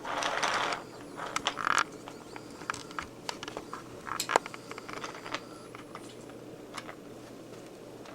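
Toy trains and track pieces being handled, with irregular small clicks and clacks as the pieces knock together. A brief rustling rush comes at the start.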